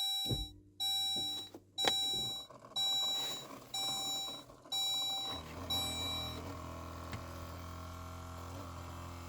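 Saab instrument cluster warning chime beeping about seven times, roughly once a second, as the cluster powers up. About five seconds in, a fan starts and runs on with a low steady hum.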